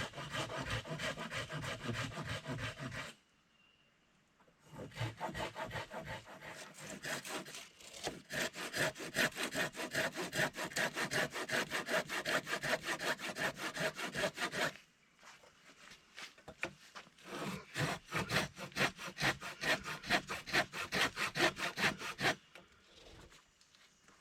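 Hand saw cutting through timber with fast, even back-and-forth strokes, in three bouts with short pauses between, the middle one the longest.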